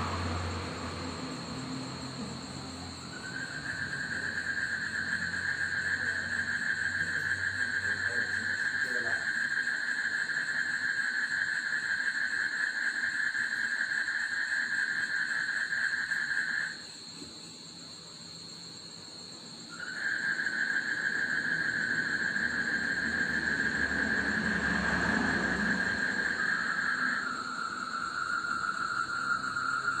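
A steady high-pitched trill from a night-calling animal starts a few seconds in, breaks off for about three seconds in the middle, resumes, and drops slightly lower in pitch near the end, over a constant fainter, higher whine. A distant vehicle rumbles by faintly at the start and again a few seconds before the end.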